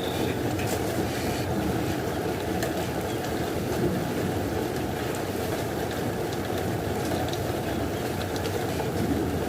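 Steady rain, an even dense patter heaviest in the low range, with a brief bird note right at the start.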